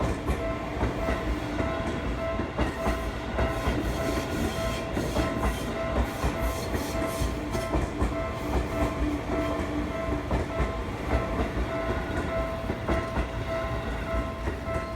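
A Seibu electric commuter train passing over a level crossing, its wheels clacking over the rail joints, while the Japanese crossing warning bell keeps up its steady ringing.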